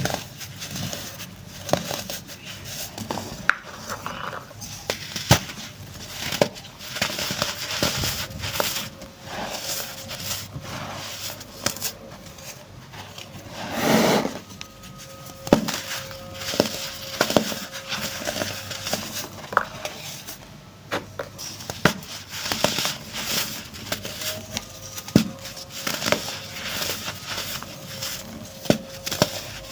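Dry chunks of baking soda being crumbled and crushed: an irregular run of crisp crackles and crunches, with one longer, louder crunch about halfway through.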